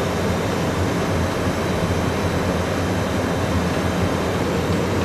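Steady, unchanging rush of cockpit noise aboard a McDonnell Douglas MD-11 in cruise: airflow around the flight deck mixed with the aircraft's running systems.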